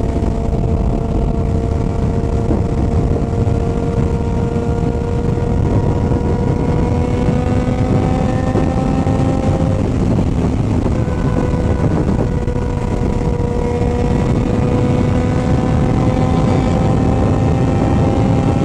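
Motorcycle engine running under way, its pitch climbing slowly, dipping about ten seconds in, then climbing again, with heavy wind rumble on the microphone.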